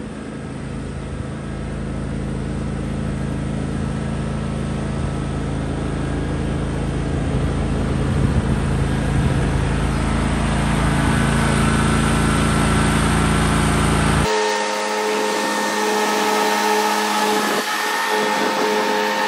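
John Deere X320 lawn tractor running with its mower deck cutting and bagger fitted, a steady engine and blade hum that grows louder as it comes close. About fourteen seconds in the sound changes abruptly, losing its low rumble and leaving a higher, steadier hum.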